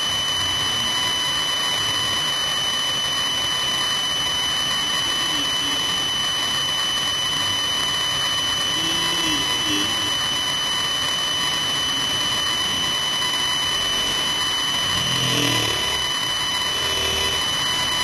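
A steady high-pitched whine with evenly spaced overtones over a constant hiss, unchanging throughout. Faint distant voices come through briefly in the middle and again near the end.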